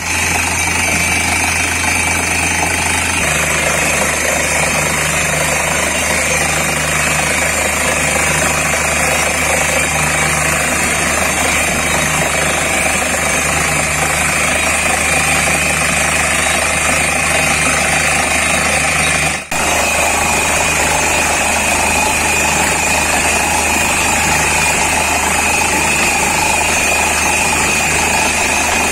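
Truck-mounted borewell drilling rig running steadily under load, its engine and air compressor driving the drill and blowing rock cuttings up out of the bore. The sound breaks off for a moment about two-thirds of the way in.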